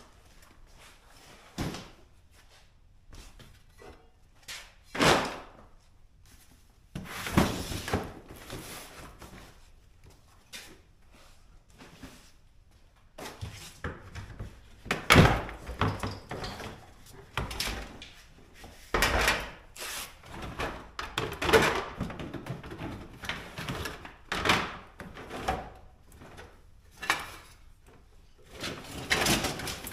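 Thunks, clatter and scraping of a plastic storage tote and old car parts being moved and rummaged through, in an irregular string with several sharper knocks, the loudest about halfway through.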